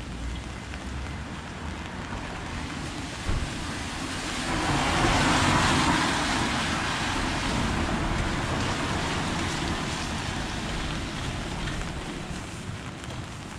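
Steady rain falling, with a car's tyres hissing past on the wet road. The hiss swells about four to five seconds in and fades slowly over several seconds. A short tap sounds a little over three seconds in.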